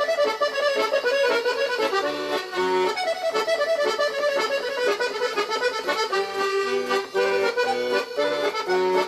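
Background music: a lively tune led by accordion, with quick repeated notes and a steady beat.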